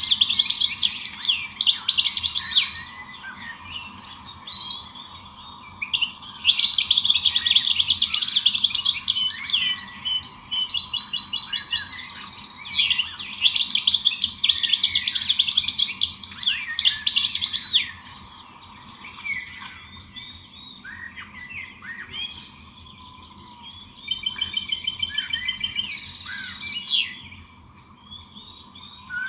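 Small songbirds chirping and twittering in rapid, high trills that come in loud bouts with quieter stretches of scattered calls between, and a few runs of clear repeated whistled notes about midway and near the end. A faint steady hum lies underneath.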